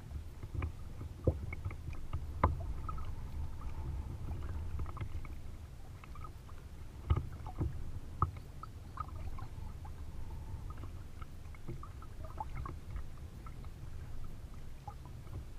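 Double-bladed kayak paddle dipping into lake water stroke after stroke, with small splashes and drips, over a steady low rumble of water against the hull. A few sharp knocks stand out, the loudest about two and a half seconds in and again about seven and eight seconds in.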